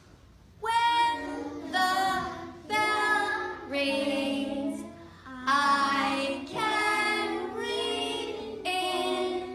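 A woman singing a series of held notes, roughly one phrase a second.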